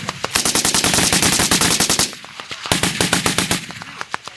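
6.8mm M250 machine gun firing on full automatic: a long burst of about a second and a half, a short pause, then a shorter burst of about a second, with a few scattered single shots near the end.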